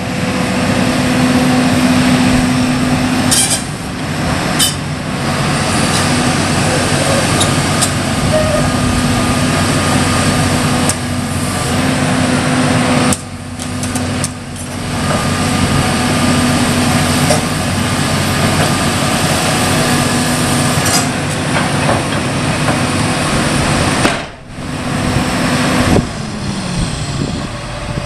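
John Deere 330C LC excavator's six-cylinder diesel engine running loudly, with scattered knocks and clanks from the machine. Near the end the engine's pitch falls.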